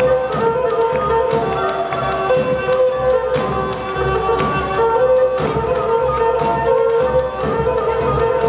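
A live band playing Pontic Greek folk dance music: a sustained melody line over regular drum beats.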